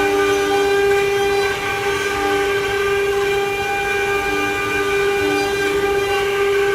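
CNC wood-carving router running, its spindle giving a steady high whine with a lower tone that comes and goes underneath.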